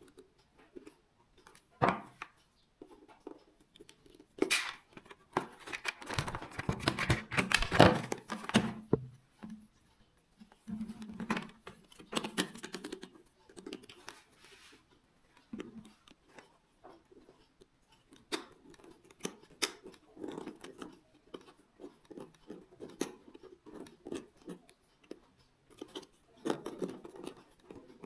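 Close-up handling of small parts by hand: irregular clicks, scrapes and rustling with short pauses, busiest and loudest a few seconds in.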